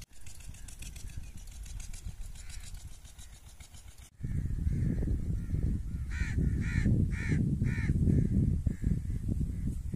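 A bird calling four times in quick succession, about two calls a second, over a loud low rumble that starts suddenly about four seconds in.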